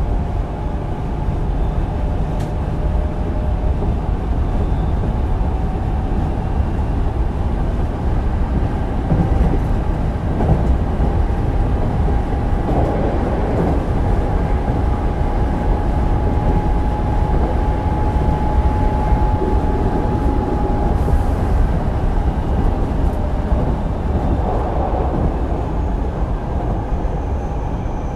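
Hankyu 8000 series electric commuter train with Toshiba GTO-VVVF traction control running, heard from inside the car: a steady, loud rumble of wheels on rail, with a thin steady whine from about ten to twenty seconds in.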